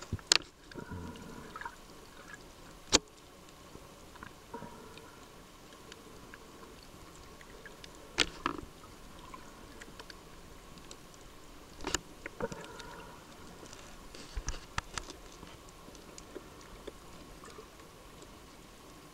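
Underwater sound picked up by a snorkeler's submerged camera: a steady hiss of water with a few sharp clicks several seconds apart and a quick run of clicks near the end.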